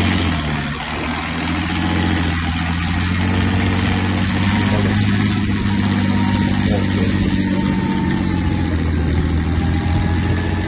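New Holland 110-90 tractor's diesel engine running hard under heavy load, a steady low drone, as it tows a loaded trailer through mud.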